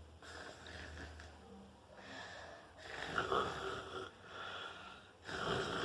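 A person imitating snoring with the voice: a series of about five breathy snores, each around a second long, with short pauses between.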